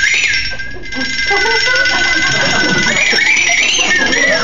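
A toy magic wand gives off a loud, buzzy high electronic tone. It holds steady, then wavers up and down in pitch from about three seconds in.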